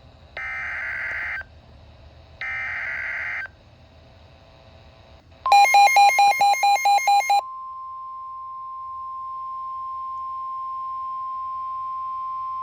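Emergency Alert System header: two harsh, buzzy digital data bursts about a second long, a second apart, then about two seconds of loud rapid beeping at roughly four pulses a second, running into a steady single-pitch alert tone.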